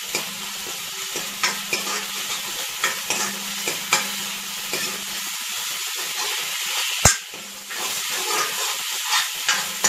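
Green curry-leaf and ginger-garlic paste sizzling in hot oil in a wok while a steel spoon stirs and scrapes it, with frequent small clicks of the spoon on the pan. One sharp knock about seven seconds in is the loudest sound.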